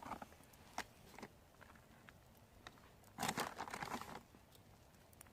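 Faint rustling and crinkling of plastic food packaging being handled, with a few light clicks; the louder rustle lasts about a second, a little past the middle.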